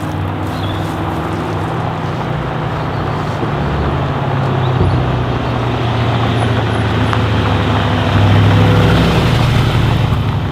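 Mercedes-AMG G63's twin-turbo V8 through an Akrapovic exhaust, running steadily and getting gradually louder, loudest about eight seconds in.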